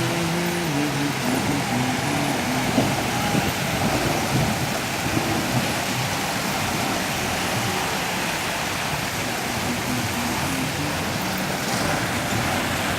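Steady rushing noise of a vehicle driving through floodwater, with faint shifting tones in the first few seconds.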